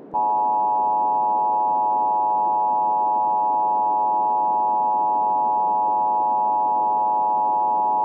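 Emergency Alert System-style attention tone: a steady chord of several tones held unchanged for the whole span, over a low hiss of static.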